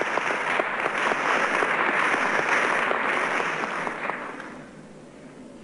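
Audience clapping in a hall: dense applause that holds for a few seconds, then dies away about four seconds in.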